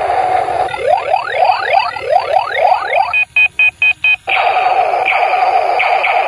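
Battery-powered 'Funny Gear' toy gun with see-through gears playing its electronic sound effects: a steady tone, then a string of quick rising zaps, five short beeps around the middle, and the steady tone again.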